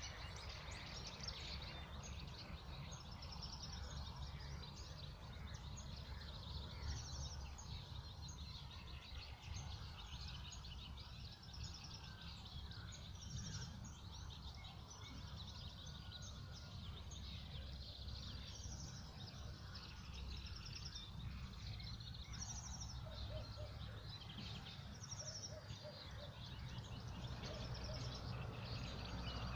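Several wild birds singing and chirping, short high trilled phrases recurring every few seconds, over a steady low rumble.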